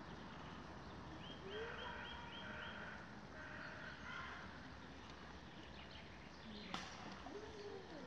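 Faint outdoor background noise with a small bird calling a quick run of about six repeated high notes, then a few more notes shortly after. A single sharp click comes near the end.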